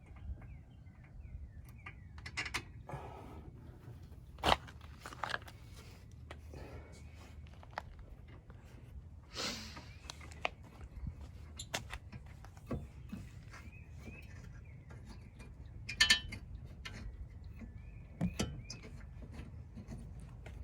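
Scattered metallic clicks and knocks as brake caliper bolts and hand tools are handled while the caliper is refitted, with a few sharper clinks.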